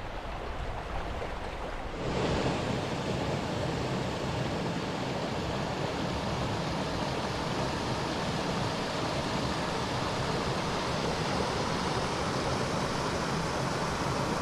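Steady rushing of a mountain stream running over rocks. It comes up suddenly about two seconds in and then holds level.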